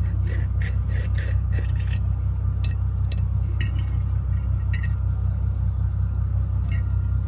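A steady low hum with a quick run of light clicks and clinks that thins out, then a high chirp repeating a few times a second from about five seconds in.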